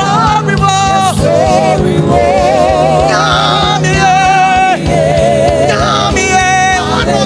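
Live gospel worship music: a singer holding long wavering notes with vibrato over a band's sustained chords and a steady drum beat.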